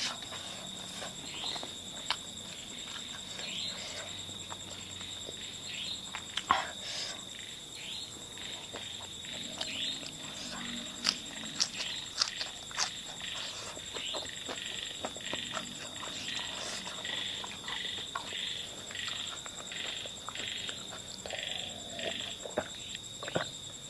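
Steady high trill of night insects, with scattered sharp clicks and a few short chirps over it; the clicks come more often in the second half.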